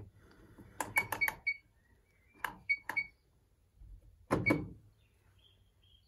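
Control panel of an Electrolux QuickWash QWC commercial washing machine beeping and clicking as its selector knob is worked through the service menu: a quick cluster of clicks and short high beeps about a second in, a few more short beeps around two and a half to three seconds, then a single heavier thump a little after four seconds.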